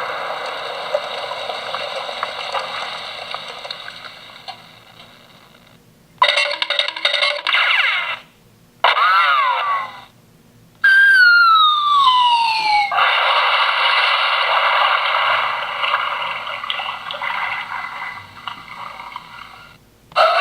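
A string of cartoon sound effects from a toy sound effects machine's small speaker, one after another with short gaps: a noisy sound fading away, a wavering tone, a wobbling tone, a long falling whistle, then a long rushing noise that slowly dies down.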